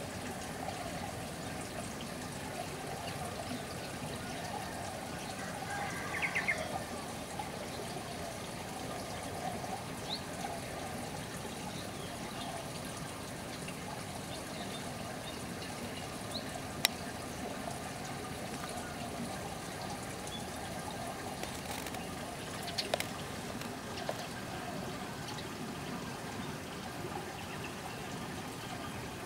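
Steady trickle of running water, with a few brief bird chirps and a couple of sharp clicks.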